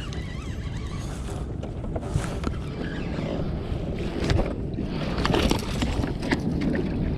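Splashing water and knocks against a kayak as a hooked bass is fought and brought to the boat, over steady wind rumble on the microphone; the knocks and splashes grow busier in the second half.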